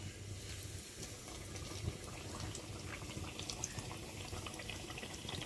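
Kayi vade (coconut-jaggery fritters) deep-frying in hot oil: a steady sizzle with scattered small crackles.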